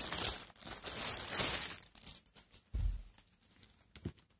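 Clear plastic clothing bag crinkling and tearing as it is opened, loudest over the first two seconds, then softer rustling. A dull thump comes a little before three seconds in.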